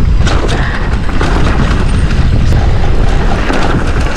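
Wind rumbling on a mountain biker's action-camera microphone while riding a dirt trail, over the rattle of the bike, with frequent sharp clicks and knocks.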